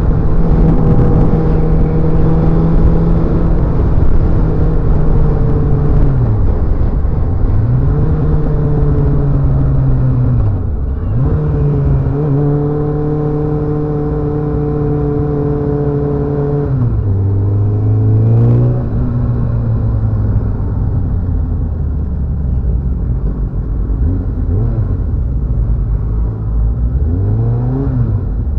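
Motorcycle engine running under way, its note mostly held steady but dropping and picking up again several times as the throttle is eased off and reopened, with a longer drop in revs past the middle. A steady rush of wind and road noise runs underneath.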